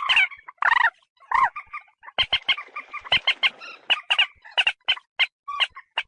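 Common moorhen calling: a fast, unbroken run of short, sharp call notes, several a second, with a few longer pitched calls mixed in.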